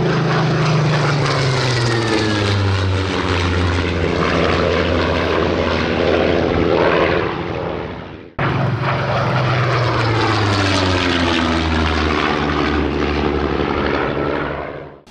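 Supermarine Spitfire's V12 piston engine and propeller running loud as the plane flies past, the engine note dropping in pitch as it goes by. It cuts off abruptly about eight seconds in and a second pass follows, again falling in pitch.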